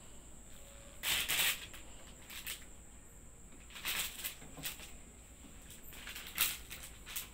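Plastic cellophane wrapping of a flower bouquet crinkling in several short bursts as a cat paws, noses and steps on it.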